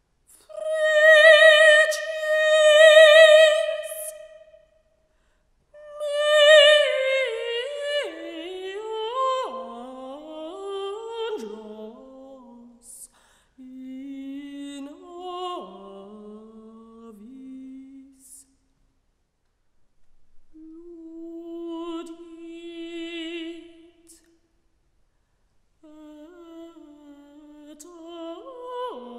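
A woman's solo voice singing in a contemporary chamber piece. She holds a long note with vibrato, then sings phrases that step downward in pitch, then holds a lower note, with short pauses between phrases.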